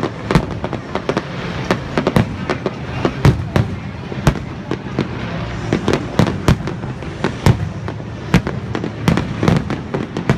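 Fireworks display: sharp bangs of bursting aerial shells in quick, irregular succession, two or three a second, over a continuous background noise.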